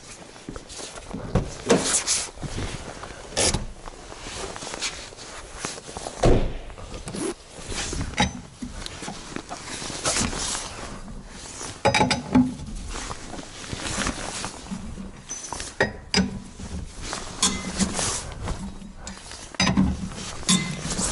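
Irregular metal clanks, knocks and clinks of hand tools at a car wheel, a wheel brace working on the wheel nuts, some strikes with a short metallic ring.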